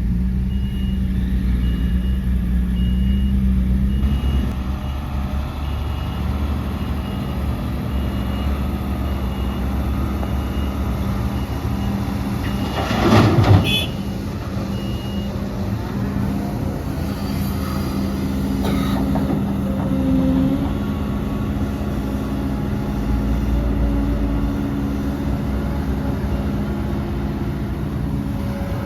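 Heavy diesel engines of an excavator and dump trucks running steadily, with a truck's reversing beeper sounding regular beeps through the first half and one loud, brief hiss-like burst about halfway through.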